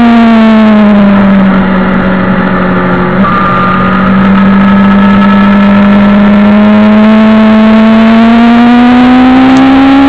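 Suzuki GSX-R750 SRAD's inline-four engine running hard at high revs, heard on board the bike. Its note dips slightly, steps about three seconds in, then rises steadily in the second half as the bike accelerates.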